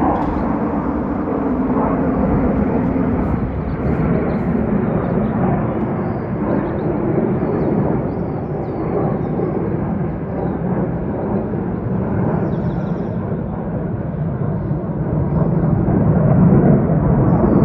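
Jet noise from a formation of four F-15 Eagle fighters, their twin turbofan engines giving a steady, loud rumble overhead that swells near the end.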